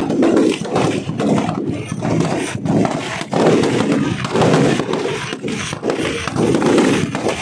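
Fireworks burning in a large blaze of flame and sparks: a rough, uneven rushing noise that swells and dips.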